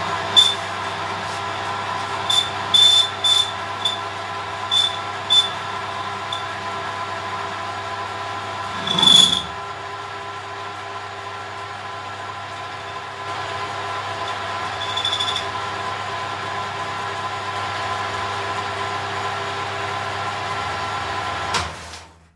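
Metal lathe running with its chuck turning a steel workpiece, a steady gear whine with several short high squeals in the first half and a louder one about nine seconds in. The lathe is switched off near the end and its sound drops away.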